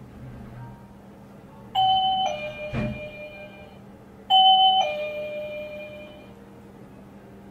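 A two-note ding-dong chime, like a doorbell, sounds twice. Each time a higher note steps down to a lower one that rings out. There is a short click during the first chime.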